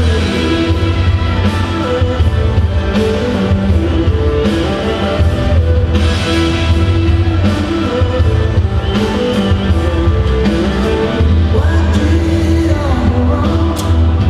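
Rock-style music with a singing voice, playing steadily throughout.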